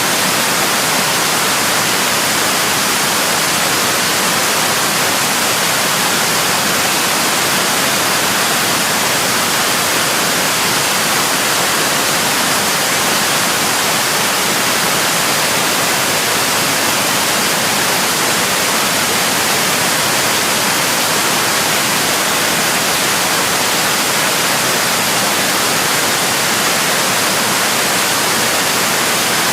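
Loud, steady static hiss like white noise, unbroken and unchanging, with no tones or voice in it.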